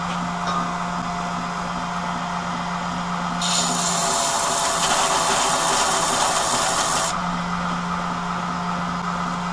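Wilmont belt grinder running with a steady hum. From about three and a half seconds in to about seven seconds, a knife blade is pressed against the belt over the small-wheel plunge attachment, giving a loud grinding hiss that stops sharply, and then the motor runs on alone.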